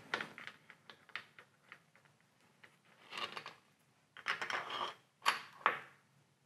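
Steel 1/2-13 threaded studs and T-slot nuts clicking and scraping against a milling machine table as they are slid into the T-slots: small sharp metal clicks, then short rattling clusters around the middle and near the end.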